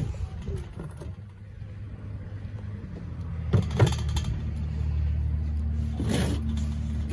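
An engine running steadily with a low hum, growing louder about halfway through. Two sharp knocks come a little past halfway as a stoneware jug is handled on the table, and there is a brief rustle near the end.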